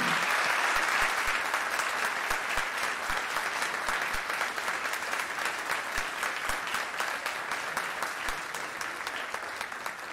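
A room of people applauding, the clapping slowly thinning and dying down.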